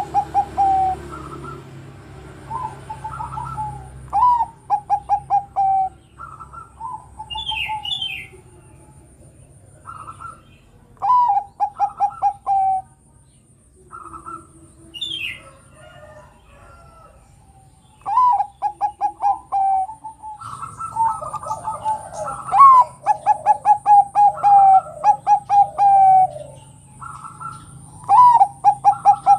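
Zebra dove (perkutut, Bangkok-bred) cooing in repeated phrases. Each phrase is a higher opening note followed by a quick rolling run of short notes that settles into a held ending. The phrases come every few seconds at first, then close together and overlapping through the second half.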